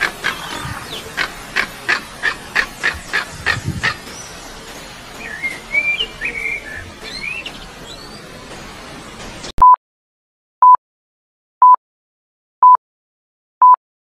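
Nature sound effect of rapid, evenly repeated chirps, then a few short whistled bird calls. The sound cuts off suddenly about nine and a half seconds in. Then come five loud, identical short electronic beeps, one a second, like a countdown tone.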